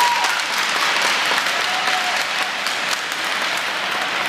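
Spectators clapping and applauding at an ice rink, with a couple of short calls from the crowd near the start and about two seconds in.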